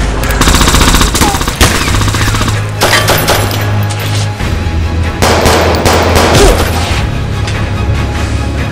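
Bursts of rapid automatic gunfire over background music with a steady low bass.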